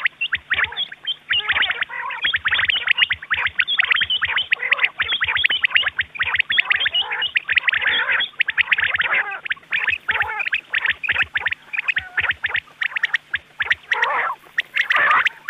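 Rain quail calling: a dense, continuous run of rapid, high chirping notes, many overlapping. It is a recorded quail call of the kind played back to lure quail into nets.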